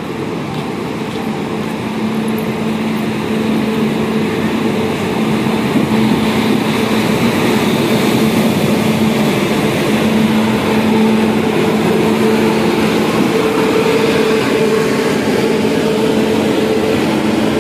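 Indian Railways WAP-7 electric locomotive rolling slowly past at close range: a steady hum of its blowers and traction equipment with two level tones over a rumble. It grows louder over the first few seconds as the locomotive draws level, then holds.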